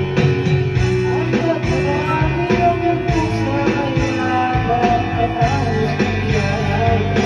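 A man singing karaoke into a handheld microphone over a backing track with guitar, played through a karaoke machine.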